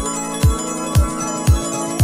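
Background music: a deep kick drum on a steady beat about twice a second, under held notes.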